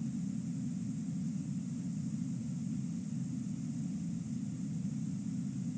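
Steady rush of a fast-flowing river, an even low roar with a high hiss and no separate chewing or splashing sounds standing out.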